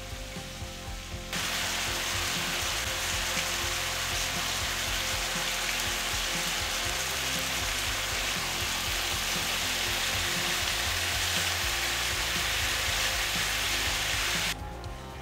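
Diced chicken breast sizzling loudly in hot oil in a frying pan. The sizzle starts suddenly about a second in and cuts off abruptly just before the end.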